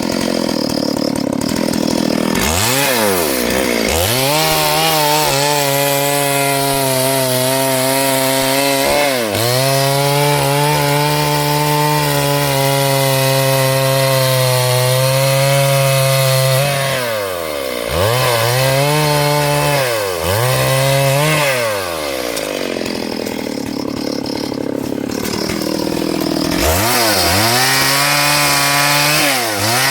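Small two-stroke chainsaw running at high revs as it cuts through a large log. The engine pitch drops and climbs back sharply several times as the throttle is eased and reopened, with a quick run of these dips about two-thirds of the way through.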